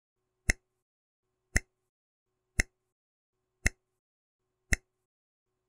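Countdown timer sound effect ticking: five sharp, evenly spaced ticks about once a second.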